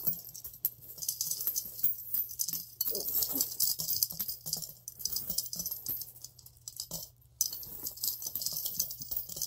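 Coins clinking and rattling as they are pushed one after another through the slot of a piggy bank and drop onto the coins already inside, with more coins scraped up from the pile. The clinks come thick and fast, with a brief lull about seven seconds in.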